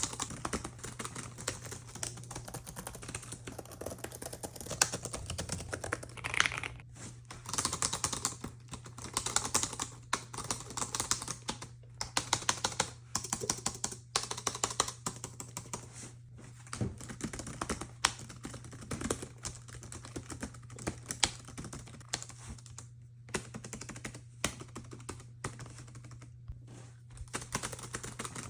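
Typing on a laptop keyboard: quick runs of light key clicks, broken by short pauses, over a steady low hum.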